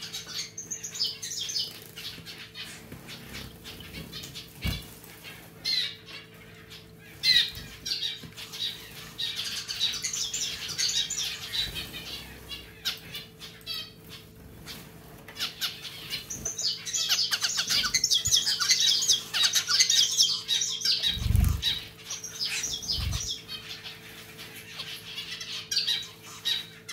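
Zebra finches calling with repeated short, high chirps, and long bursts of wing fluttering in the middle and later on. Underneath runs a steady faint hum from the running pet water fountain. Two low thuds come near the end.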